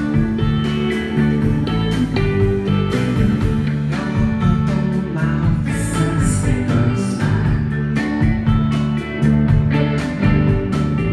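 Live alternative rock band playing loudly: electric bass notes, electric guitar and a drum beat.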